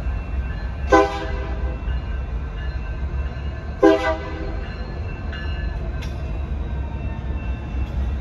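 BNSF diesel locomotive horn sounding two short blasts, about three seconds apart, over a steady low rumble.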